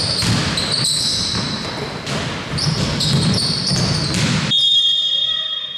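Basketball game play: the ball bouncing and sneakers squeaking on the court. The noise drops off suddenly near the end, leaving a faint steady high tone.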